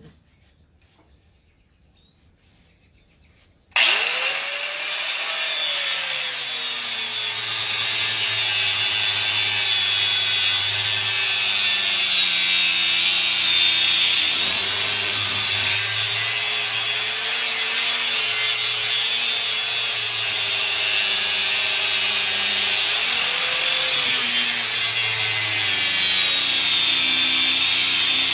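An angle grinder with a cut-off wheel starts up about four seconds in and cuts steadily through the steel core and copper windings of an electric motor's stator. Its whine wavers in pitch as the wheel bites and eases under load.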